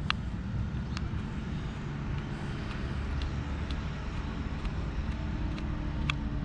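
Small sharp metal clicks, a few seconds apart, as a screwdriver works the side-plate screws out of a baitcasting reel, over a steady low background rumble.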